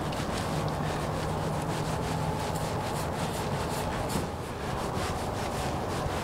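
Paintbrush scrubbing liquid wood hardener into soft, water-swollen pressed-wood threshold, a run of short, irregular rubbing strokes.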